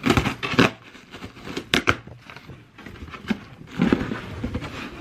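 Cardboard shipping box being pulled open by hand: flaps tearing and scraping, with crackling cardboard in irregular bursts, loudest at the start and again about three to four seconds in.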